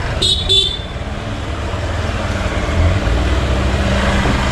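Two short horn beeps in quick succession, then the Hero Xpulse 200's single-cylinder motorcycle engine running steadily at low speed.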